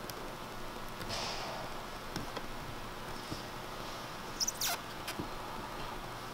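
Fingers pressing and smoothing sealant tape onto a roof fan flange: quiet rustling and light rubbing, with one short squeak falling in pitch about four and a half seconds in.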